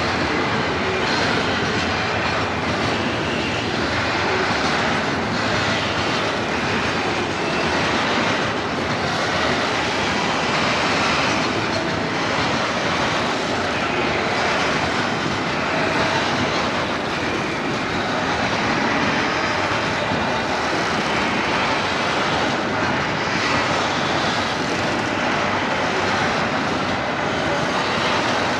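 Freight train of tank wagons rolling along narrow-gauge track: a steady, even rumble.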